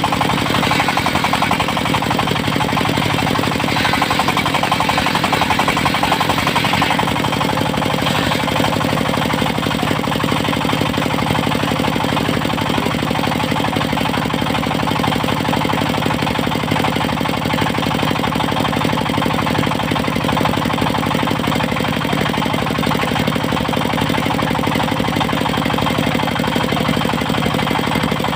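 Diesel engine of a mobile circular sawmill running steadily with a fast, even beat.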